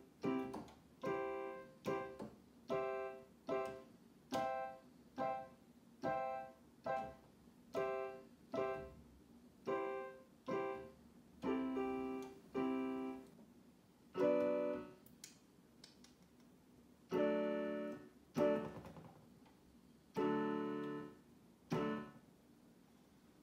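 Piano played slowly, chords struck about once a second and each left to fade. After about fourteen seconds the playing thins to a few longer-held chords with pauses between them.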